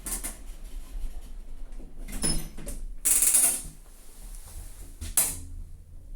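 Passenger lift in use: the doors closing with clunks and a rough hissing scrape, then the car setting off with a low steady hum from its machinery.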